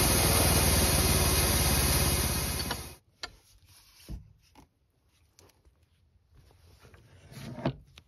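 Wood-Mizer LT15 portable band sawmill running with its blade cutting through a Ponderosa pine log, steady and loud until it cuts off abruptly about three seconds in. After that, a few short knocks as the log is handled on the mill bed, the loudest near the end.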